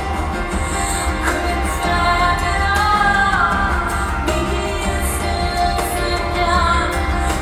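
Live pop-rock song: a woman sings a sliding melodic line over the band, with drum and cymbal strokes and a steady bass underneath.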